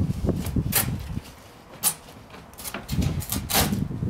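A large polystyrene and fibreglass-roving boat frame being manoeuvred through a wooden shed doorway: irregular knocks, scrapes and creaks as it bumps the door frame and floor, with a sharp click just under two seconds in and a cluster of knocks near the end.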